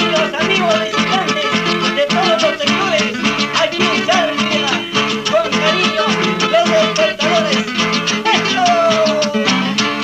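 Instrumental passage of Andean folk music: a wavering lead melody of short notes with slides, over plucked strings and a steady beat, with no singing.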